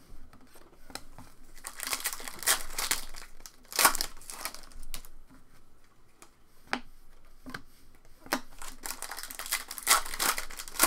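Rustling and crinkling of stiff trading cards and packaging being handled, ending with a foil card-pack wrapper crinkling as it is torn open.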